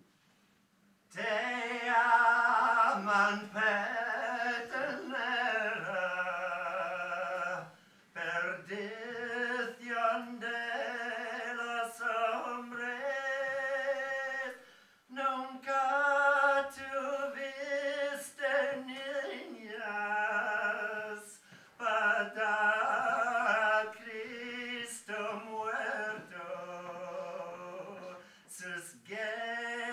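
A voice singing slow phrases of long, held notes. It starts about a second in and pauses briefly twice along the way.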